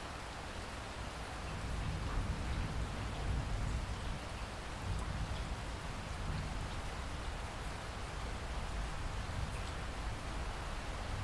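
Steady rain falling, a dense even hiss with a few individual drops ticking, slightly heavier about two seconds in.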